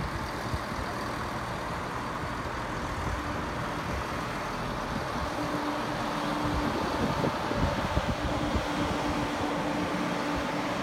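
ScotRail Class 170 Turbostar diesel multiple unit running slowly into the platform, its diesel engines and wheels giving a steady hum. A steady drone sets in about halfway through, and the sound grows louder for a few seconds as the train passes close by.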